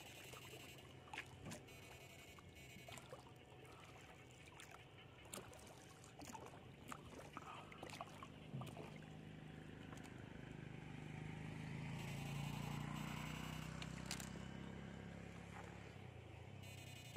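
A low engine hum swells gradually to its loudest about three-quarters of the way through, then fades, as of a motor passing along the canal or nearby road. Scattered light clicks and rustles come through the first half.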